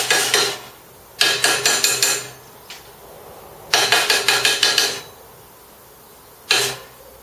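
Plasma-cut steel flat-bar slats being belted to knock the plasma dross off: quick runs of sharp metal-on-metal strikes, about six a second, with a ringing steel tone. Three bursts of about a second each, and a short fourth one near the end.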